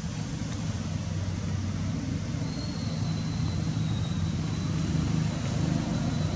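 A steady low rumble with a hum, like a running motor, and a faint thin high whistle that comes in about two and a half seconds in.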